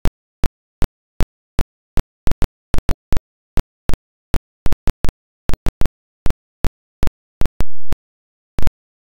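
A silent soundtrack broken by sharp clicks, about three a second at uneven spacing, with a brief low hum near the end.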